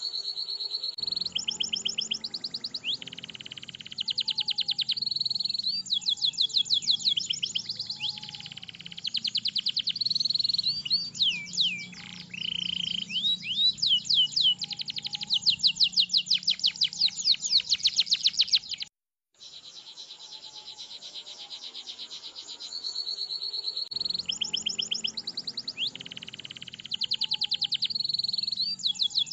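Domestic canary singing a long song of rapid rolling trills and held whistles. There is a brief break about two-thirds of the way through, after which the singing resumes.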